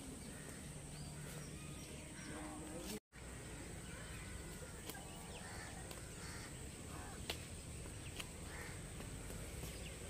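Birds calling faintly: scattered short chirps and calls, some harsher, over a steady low outdoor noise. The sound cuts out for an instant about three seconds in.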